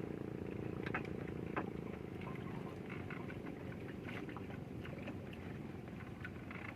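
A small engine running steadily as a low, even hum, with short high chirps or clicks scattered over it.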